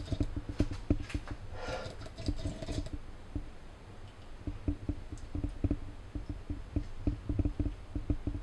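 Camera handling noise: a string of small, irregular taps and knocks, several a second, from a hand gripping a camera on a bendy-legged tripod, over a low steady hum.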